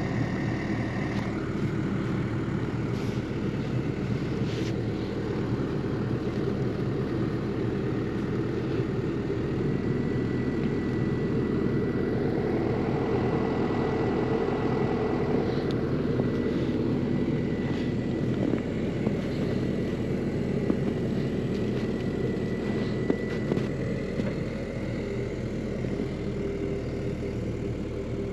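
Excavator's diesel engine running steadily, with a thin, steady high whine over it through the middle part and the sound growing louder for a few seconds about halfway through.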